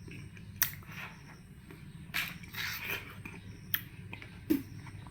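Person biting into and chewing watermelon: several short, sharp bite clicks with softer wet chewing between them.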